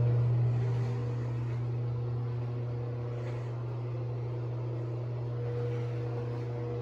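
A fan motor running with a steady low hum and fainter overtones above it.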